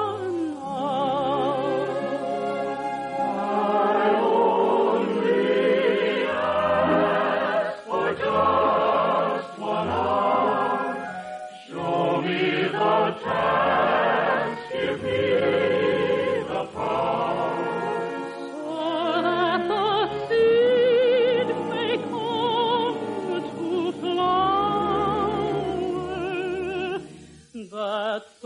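A soprano sings a slow waltz song with wide vibrato over orchestral accompaniment. The sound is thin and band-limited, as on an old radio broadcast recording.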